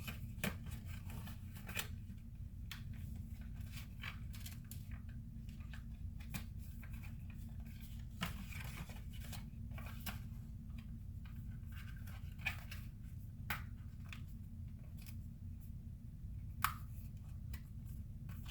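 Packaging being cut and torn open by hand: a run of irregular snips, crackles and clicks, with a sharper click near the end, over a steady low hum.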